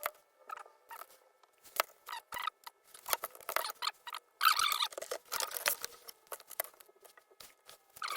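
Irregular scratching, rustling and sharp clicks of hands and tools working on the electronics, with a denser scratchy stretch about four and a half seconds in.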